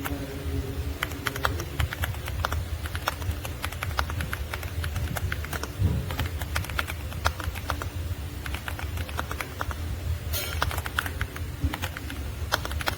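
Typing on a YUNZII B75 PRO gasket-mounted mechanical keyboard: a fast, uneven stream of key clicks with a steady low hum beneath, and a denser flurry of keystrokes near the end.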